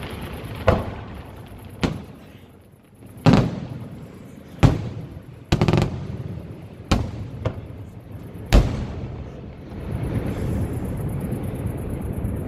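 Senatore Fireworks aerial shells bursting in a night display: about eight sharp bangs at irregular intervals over the first nine seconds, each followed by a rolling echo, then a dense continuous rumble near the end.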